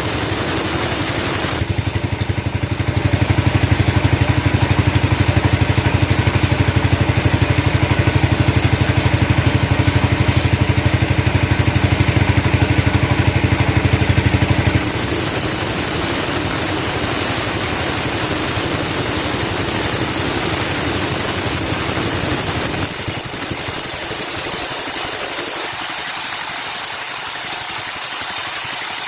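Sawmill engine running steadily. It runs heavier and louder from about two seconds in until about fifteen seconds in, then drops back to a lighter running sound.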